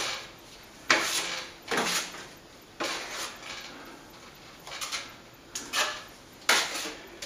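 Steel plastering knife scraping compound against a hard ceiling, in about six short, irregularly spaced scrapes with a light metallic clatter.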